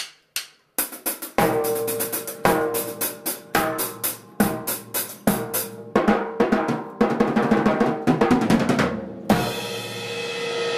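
Acoustic drum kit played in a 3/4 waltz beat with bass drum, snare and cymbals, after a few single sharp hits at the start. About nine seconds in, a cymbal crash rings on under the last strokes.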